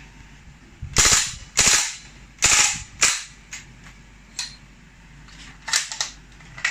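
SRC MP5 CO2 gas-blowback airsoft gun firing in full auto: four loud sharp bangs of the blowback action over about two seconds, starting about a second in. Fainter metallic clacks follow near the end as the 35-round CO2 magazine runs out and the bolt locks back on the last shot.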